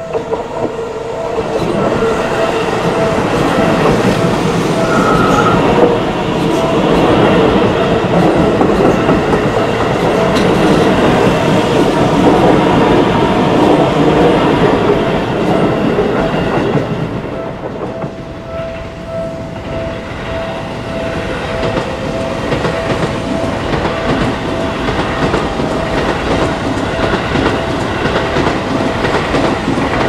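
Japanese level crossing warning bell ringing in a steady repeating ding-ding over a Seibu Railway electric commuter train rolling through, its wheels clacking over the rail joints. The train noise eases off a little after halfway as a second train comes through.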